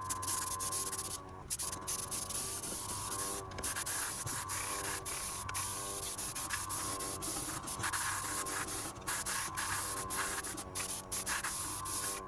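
Airbrush spraying stain in a steady hiss, cut by many brief pauses as the trigger is let off and pressed again, over the steady hum of the kit's small airbrush compressor running.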